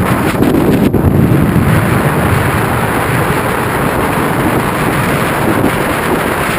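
Loud, steady wind buffeting the camera microphone, heaviest in the low end, from air rushing past during a tandem skydive descent under the parachute.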